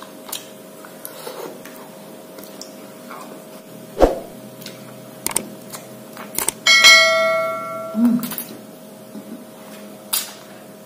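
A bell chime sound effect from a subscribe-button animation rings out about two-thirds of the way in and dies away. Around it are small mouth noises of licking and biting an ice cream on a stick, with one sharp click about four seconds in.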